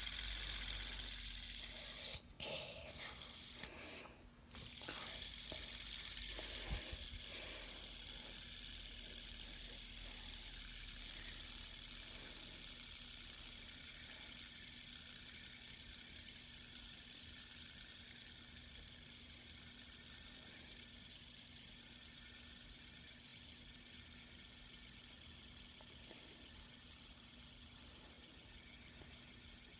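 Fidget spinners whirring on their ball bearings: a steady high hiss that slowly fades as they spin down. Brief handling noises break in about two and four seconds in.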